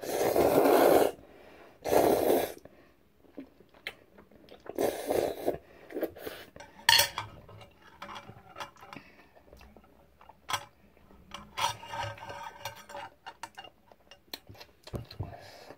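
Eating sounds over a bowl of jjajang ramen: utensils clicking and scraping against the bowl, with several short noisy bursts, the loudest in the first second and again about two seconds in.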